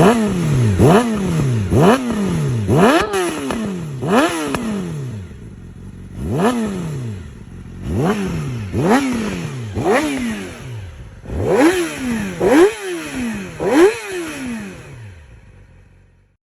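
Yamaha YZF-R6 inline-four sportbike with a Yoshimura exhaust being revved at a standstill: a dozen or so sharp throttle blips about a second apart, each climbing quickly and dropping back. There is a short lull about a third of the way through, and the sound fades out near the end.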